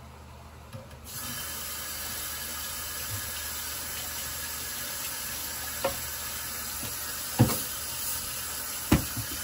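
Kitchen tap turned on about a second in, water running steadily with a hiss, with three sharp knocks; the last two, near the end, are the loudest.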